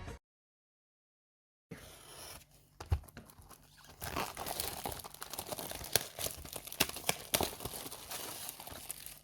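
Plastic shrink-wrap being torn and crinkled off a sealed trading-card booster box, starting about two seconds in after a moment of silence, with scattered sharp crackles.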